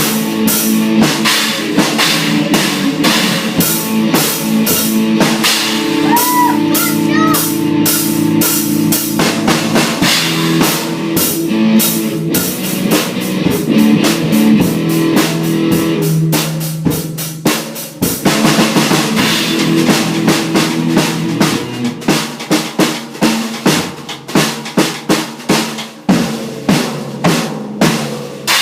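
Rock guitar and drum kit playing together, the guitar holding sustained chords over a busy beat; about two-thirds of the way through the guitar drops away and the drums carry on alone with separate, punchy hits.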